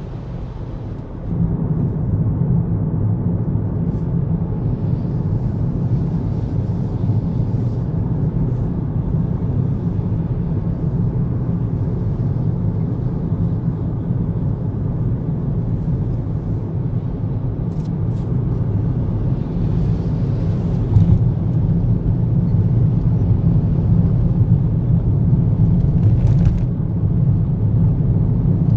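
Car driving at expressway speed, heard from inside the cabin: a steady low rumble of road and engine noise, which gets louder about a second in.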